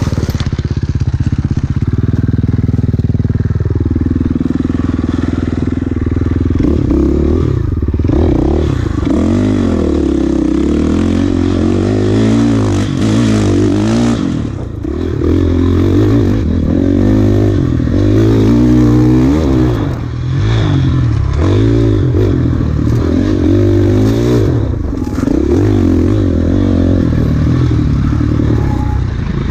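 Enduro dirt bike engine heard from on the bike, revving up and down continually as the throttle is worked and gears change over rough terrain, with clattering from the bike.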